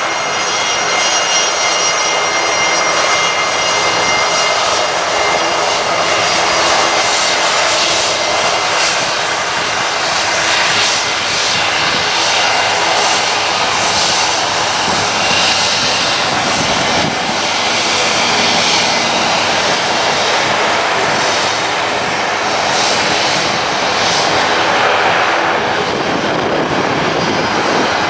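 Airliner engines running loud and steady, a dense rushing noise with high-pitched whining tones that fade away by about halfway through.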